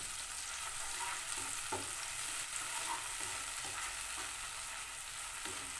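Shallots and chillies sizzling steadily in hot oil and sweet soy sauce in a nonstick wok, stirred with a plastic slotted spatula that scrapes and knocks lightly against the pan.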